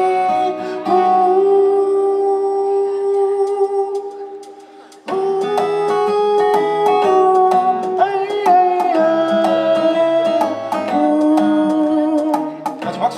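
Live pop band music with vocals. A held sung note and its accompaniment fade out about four seconds in, then the band comes back in suddenly about a second later with guitar and keyboard playing an instrumental passage.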